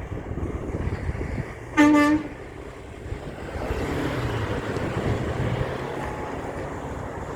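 A big truck's horn sounds one short, loud blast about two seconds in, over the rumble of traffic, followed by the engine and tyre noise of the truck going past.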